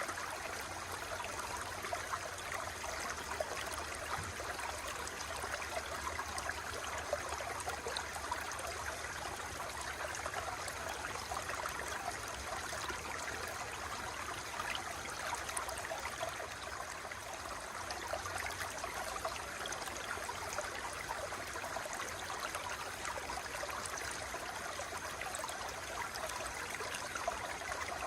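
Running water flowing steadily, an unbroken rush with many small quick splashes in it.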